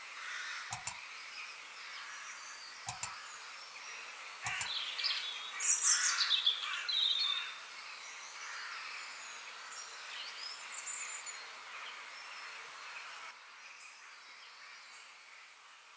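Nylon fabric of a Rockpals pop-up tent rustling and swishing as it is unfolded and shaken open, loudest from about four to seven seconds in. Three sharp clicks come earlier, in the first five seconds.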